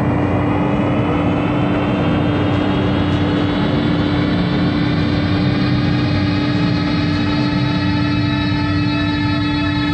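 Berlin-school style electronic chill-out music: a steady synthesizer drone under a dense, noisy synth texture, with faint overtones that glide slowly upward.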